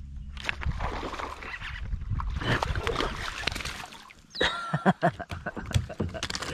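Water splashing and sloshing at the surface as a hooked bass is reeled up to the kayak, followed by a few sharp clicks and knocks about two thirds of the way in as the fish is lifted out on the line.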